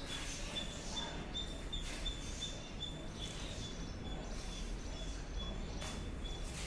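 A bird calling with one high, thin chirp repeated steadily, about three to four times a second, over outdoor background noise.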